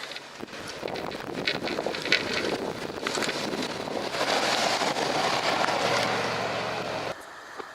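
Wind buffeting the microphone over a snowplow truck running, with a few sharp clicks. The noise swells, then cuts off abruptly near the end.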